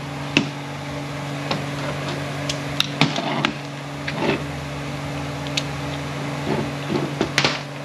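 Scattered clicks and light knocks of a 6T70 transmission valve body and its bolted-on reaming jig being handled, lifted and turned over on a metal workbench, over a steady low hum.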